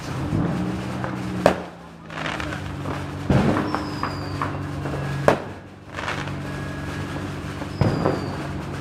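Firecrackers going off one at a time: four sharp bangs about two seconds apart, over the steady hum of an idling car engine.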